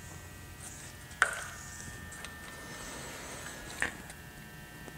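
Two short knocks as a small paint cup is handled over the canvas, the first about a second in and a fainter one near four seconds, over a faint steady electrical hum.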